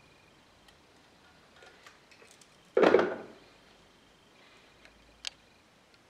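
Handling noise from a wooden frame: a few light clicks and ticks, then one sharp knock about three seconds in that dies away within about half a second, and a single click near the end.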